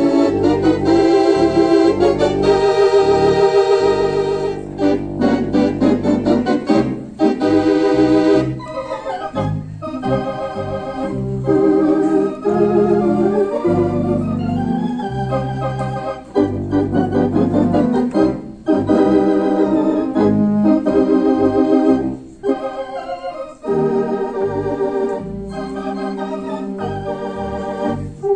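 Theatre organ played live: sustained chords over a moving bass line, the held notes wavering slightly, with brief drops in loudness between phrases.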